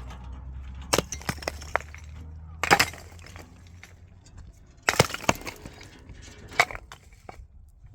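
A run of sharp knocks and clatters of hard material being struck or dropped, about seven in all and loudest around a third and two-thirds of the way through, over a low steady hum that fades out a few seconds in.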